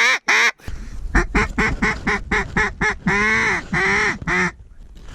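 Mallard duck call blown in a loud run of hen quacks, each note dropping in pitch: a quick series of about four quacks a second, then three longer quacks. It is a hunter calling to a passing group of mallards. Wind rumble comes in just under a second in.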